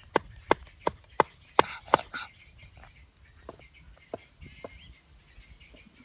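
Steel cleaver chopping red chilies on a round wooden chopping block: sharp knocks about three a second, thinning after about two seconds to a few softer, slower knocks.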